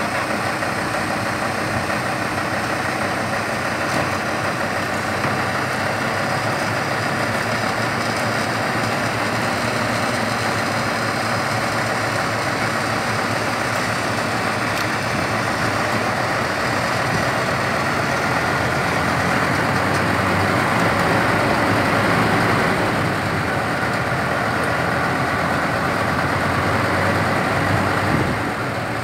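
Dump truck's diesel engine running steadily while the hydraulic hoist tips the loaded bed and earth slides out, getting a little louder about two-thirds of the way through.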